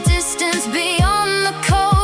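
Music from an AI-generated song: a wavering, held melody line over deep, irregularly spaced beat thuds.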